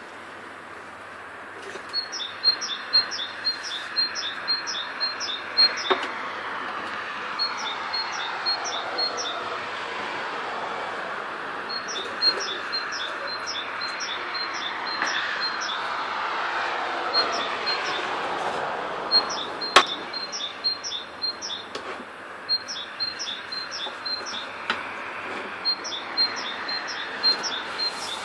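A small bird chirping in quick, evenly spaced high notes, in several bouts, over a steady rushing background with slow falling sweeps. A single sharp click about two-thirds through.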